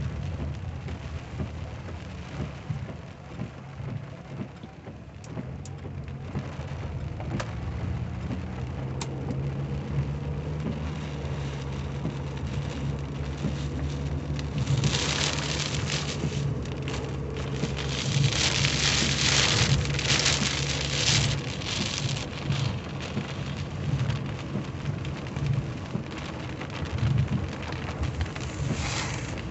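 Heavy rain pelting the roof and windshield of a moving car, heard from inside the cabin over the low, steady hum of the engine. From about halfway through, the rain comes in louder surges.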